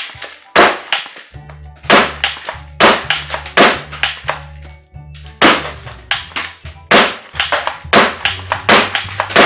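A toy M416-style BB rifle fires repeatedly at a cardboard box: about a dozen sharp shots, roughly one every half second.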